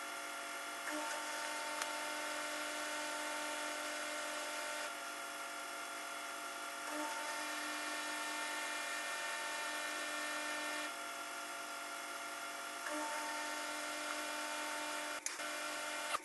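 A small electric motor running steadily with a hum of several fixed tones, its level stepping slightly every few seconds; a single sharp click about fifteen seconds in.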